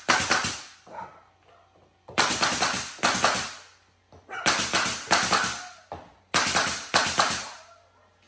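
Nail gun firing into crown molding in quick bursts of several sharp shots, a new burst about every two seconds.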